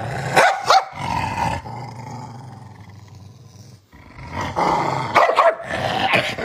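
Dog growling in warning with short sharp barks as its tail and paw are grabbed: two sharp barks about half a second in, a quieter lull in the middle, then growling again with several quick barks near the end.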